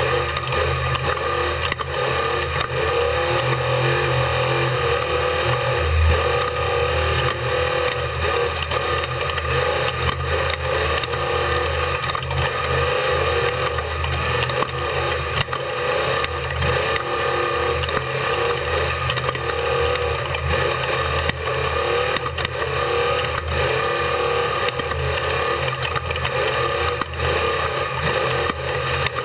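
Unlimited-class desert race truck's engine running hard, heard on board, its pitch wavering up and down with the throttle, with frequent knocks and rattles running through it.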